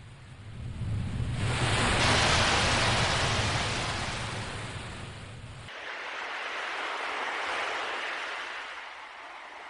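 Ocean waves washing in: one wave swells up over the first two seconds and slowly falls away, then a second, weaker wave rises and fades.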